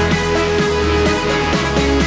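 Electronic music with a steady beat and a pulsing bass line.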